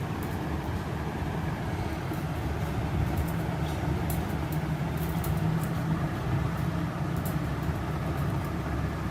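A steady low rumble of background noise, with faint irregular sharp clicks over it, like parrots' beaks nibbling at fresh corn kernels.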